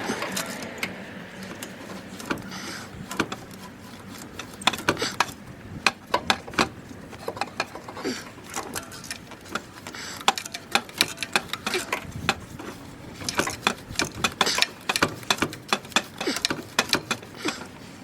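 Irregular series of sharp mechanical clicks and ticks, some coming in quick clusters.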